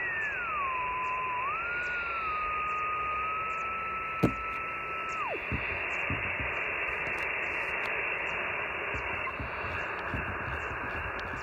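Icom IC-705 receiver audio in USB mode tuned onto the QO-100 satellite beacon: a whistle tone that glides up, dips, then holds steady over the receiver's hiss, and drops away in pitch about five seconds in as the dial moves off the beacon, leaving only hiss. A single sharp click about four seconds in.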